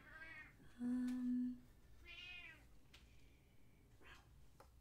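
A pet cat meowing: one call right at the start and another high, arching meow a little over two seconds in. About a second in there is a short, steady low hum, the loudest sound here.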